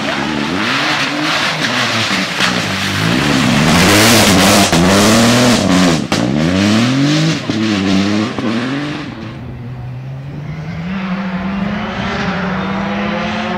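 Rally car engines revving hard and dropping back again and again through gear changes as the cars pass on a loose dirt stage, with grit and stones thrown up by the tyres. Near the end, another rally car approaching from a distance holds one steady high-revving engine note that climbs slightly.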